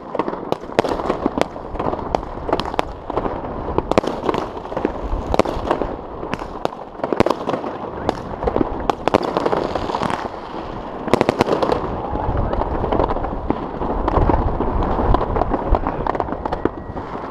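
Aerial fireworks salutes going off across a city, a continuous barrage of irregular bangs and crackles, several a second, near and distant overlapping.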